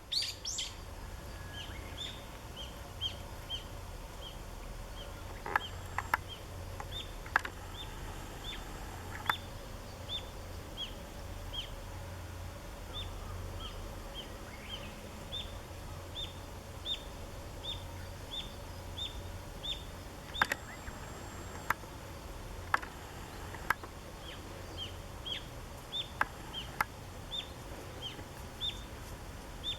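A small bird repeating short, high chirps, about one to two a second, with brief pauses, over a steady low rumble. A few sharp clicks stand out louder than the chirps.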